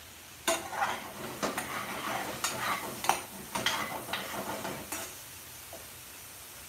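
Long metal ladle scraping and clinking against an aluminium frying pan as a thick chicken curry is stirred. The stirring stops about five seconds in.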